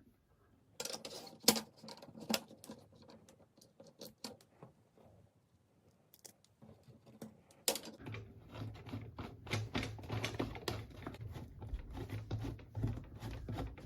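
Irregular clicks, taps and light scrapes of small plastic parts, screws and washers being handled and fitted by hand while fastening a brooder heater's heating plate to its stands. A low steady hum comes in about two-thirds of the way through.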